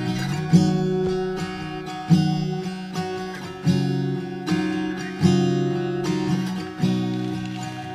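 Background music: strummed acoustic guitar chords, a fresh strum every second or so, with no singing.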